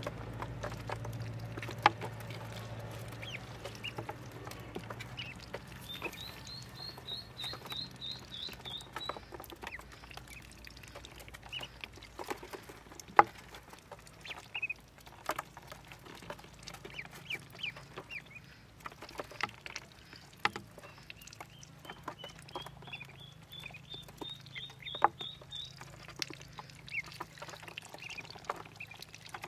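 Ducklings peeping, with two runs of quick high chirps and scattered single peeps. Their bills click and tap sharply against the plastic waterer's tray as they drink and feed.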